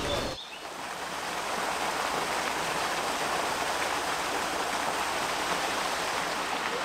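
Small waterfall cascading over rocks: a steady rushing splash of falling water that fades up from about half a second in and then holds even.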